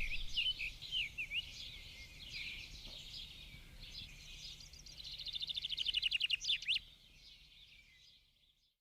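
Birds chirping and twittering, with a rapid trill about five seconds in that is the loudest part, then fading out near the end.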